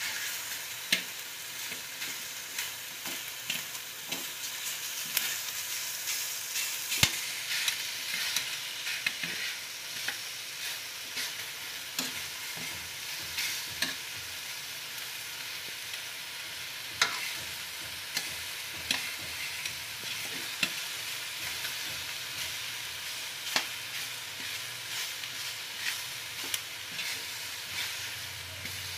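Pork belly pieces sizzling as they fry in a pan, with steady hissing and sharp clacks of tongs against the pan as the pieces are turned.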